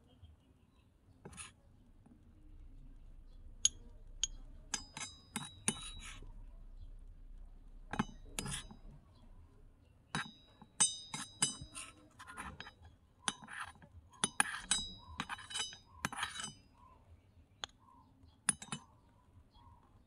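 Small metal spoon clinking and scraping against a miniature wok while scooping out the food, in irregular clusters of sharp, ringing clicks.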